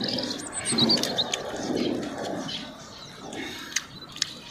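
Birds chirping, mostly in the first second or so, over close clicks and smacks of people chewing grilled chicken.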